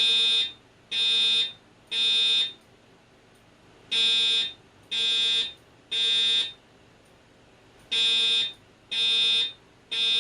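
Fire alarm evacuation tone sounding in the temporal-three pattern: three harsh, buzzy half-second blasts, a pause of about a second and a half, then three more, repeating three times. It is the alert signal played between the spoken evacuation messages of a voice-evac system under test.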